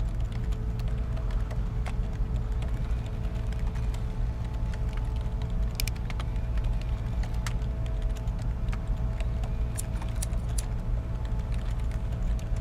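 Office ambience: a constant low rumble with a faint steady hum, and scattered clicks of computer keyboard typing, a few sharper ones near the middle.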